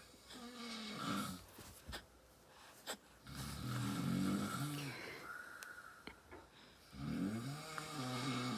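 A man snoring loudly in his sleep: three long, low, rattling snores about three and a half seconds apart.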